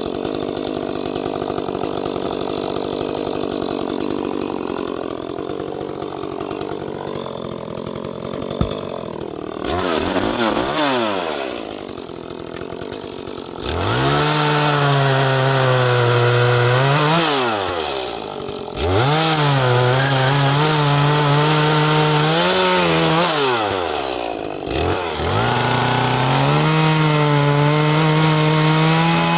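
Small Echo two-stroke chainsaw of about 30 cc cutting through a log. It runs unevenly at first, then is held at full throttle in three long stretches, the revs dropping away briefly between them.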